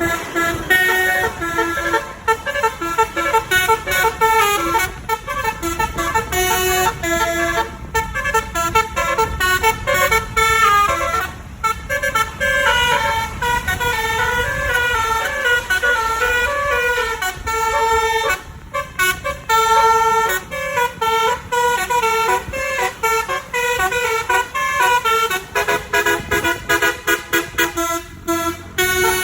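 Indonesian 'telolet basuri' bus horn, a multi-tone musical horn, playing a fast tune of short notes that step up and down, with a few brief breaks between phrases.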